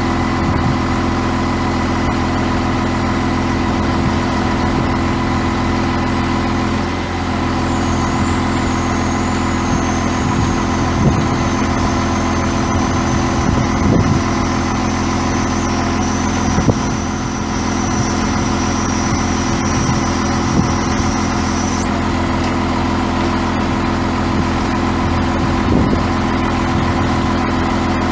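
International DT466 inline-six turbo diesel idling steadily. A thin high whine comes in about a quarter of the way through, drifts slightly lower and cuts off suddenly about three-quarters of the way through, with a few short knocks along the way.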